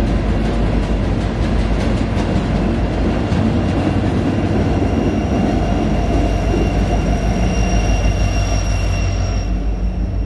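Freight train of tank cars with a BNSF diesel-electric locomotive rolling past on the tracks below: a steady loud rumble of wheels, cars and engine. A thin high squeal of wheels on rail joins about halfway through and fades near the end.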